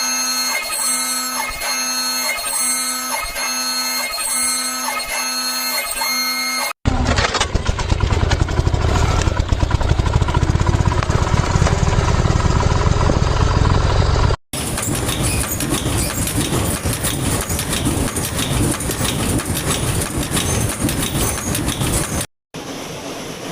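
Factory production machinery in three short clips: first a machine cycling about once a second with a pulsing hum and light clinks, then a heavy low rumbling machine, then a fast dense clatter.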